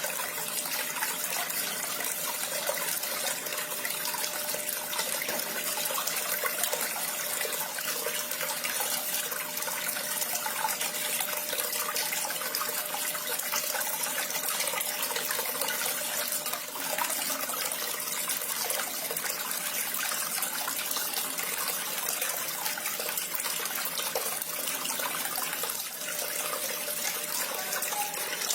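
Water falling steadily down a small cemented waterfall, an even, unbroken splashing.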